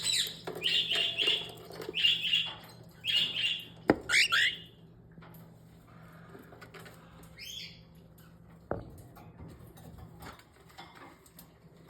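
Cockatiels chirping in four loud bursts over the first four seconds or so, then going quieter with one short chirp later on. Sharp knocks sound about four seconds in and again near nine seconds.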